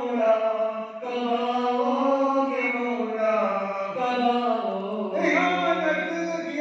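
Unaccompanied male chanting of an Urdu munajat, a devotional supplication, sung in long held notes that bend slowly in pitch, with short pauses for breath between phrases.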